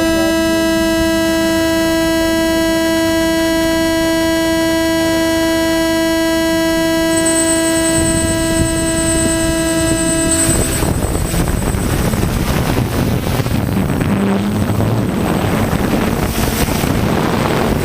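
Steady high buzz from the DJI H3-3D gimbal, picked up by the GoPro Hero3+ Black's microphone, which cuts off suddenly about ten seconds in. It gives way to a rushing noise of the drone's rotors and wind as the aircraft takes off, the buzz no longer heard.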